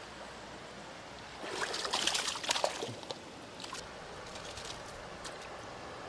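Small creek running steadily, with a burst of splashing about a second and a half in as a hooked rainbow trout is brought to the bank's edge, followed by a few small clicks and crackles.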